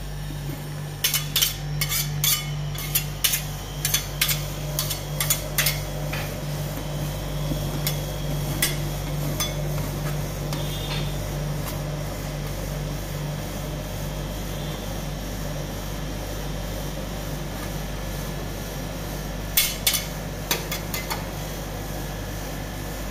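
A metal spatula tapping and scraping on a steel cold plate while blueberry rolled-ice-cream mix is spread thin: a run of sharp taps in the first six seconds and another short run about twenty seconds in. A steady low hum runs underneath.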